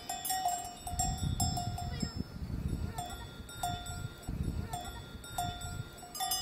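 Bells on the necks of cows clanking irregularly as the cows move, the same ringing note struck again and again, several times a second. A low rumble runs underneath.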